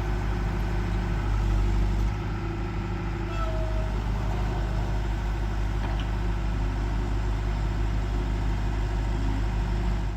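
John Deere 4.5 L four-cylinder turbo diesel of a 310SG loader backhoe running steadily, with a deep, even engine hum; the level dips slightly about two seconds in.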